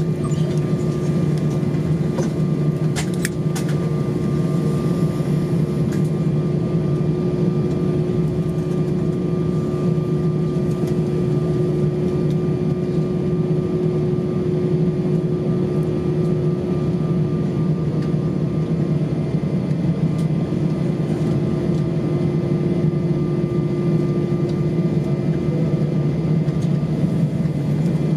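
Steady drone inside the cabin of an Airbus A320 on the ground after landing, with a constant low hum and a steady tone over it. A couple of light clicks about three seconds in.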